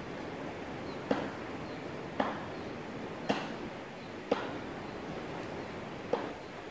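Steady rush of river water with short, sharp taps or plops about once a second, six in all.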